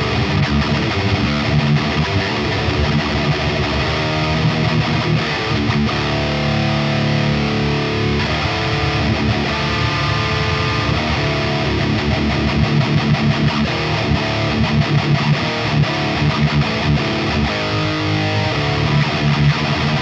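High-gain distorted electric guitar playing a heavy metal riff through a 5150-style tone and the PVH515 4x12 cabinet impulse response. From about twelve seconds in, the riff turns to a run of fast, evenly spaced pulses.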